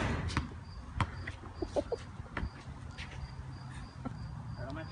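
A basketball thudding a few times on a concrete driveway, the knocks spaced unevenly over the first couple of seconds, after the fading tail of a loud crash. A faint high chirp repeats steadily in the background.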